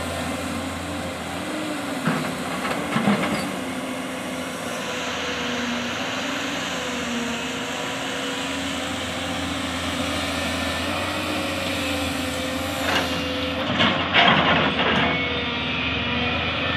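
JCB tracked excavator's diesel engine running steadily under load, with a droning tone that wavers slightly in pitch as the hydraulics work the arm. Twice, around two to three seconds in and again around thirteen to fifteen seconds in, there are short loud clatters of soil and rock as the bucket digs and loads.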